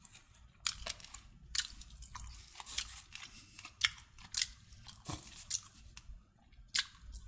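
A person chewing food close to the microphone: irregular crunches, about two a second.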